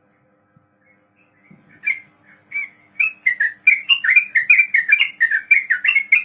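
Yellow-vented bulbul (trucuk) singing: a couple of separate whistled notes, then from about three seconds in a fast run of notes, about six or seven a second, rising and falling in pitch. This is the rapid rolling phrase that keepers call 'ropel'.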